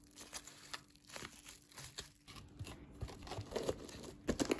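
Plastic cling wrap crinkling as it is pressed and smoothed by hand over ice cream in a plastic container, with light plastic clicks and taps near the end as the container's lid is set on.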